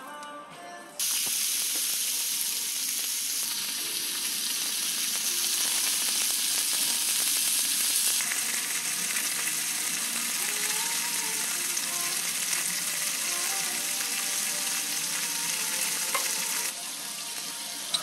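Thick pieces of pork sizzling on a hot griddle plate. A loud, steady hiss cuts in sharply about a second in, after a moment of background music, and eases off slightly near the end.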